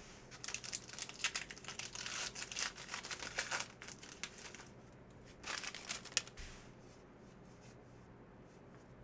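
The foil wrapper of a baseball card pack being torn open and crinkled: a dense crackling run of about three and a half seconds, then a shorter burst about five and a half seconds in.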